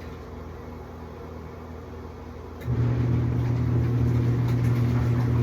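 Portable twin-tub washing machine's wash motor pausing, then starting again about two and a half seconds in with a steady low hum: the wash cycle's stop-and-go agitation as the pulsator changes direction.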